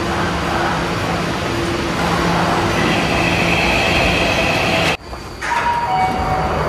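Tokyo Metro Marunouchi Line 2000-series subway train at the platform, its electrical equipment humming steadily, with a higher whine joining about three seconds in. Near five seconds the sound breaks off suddenly, followed by a short falling two-note chime.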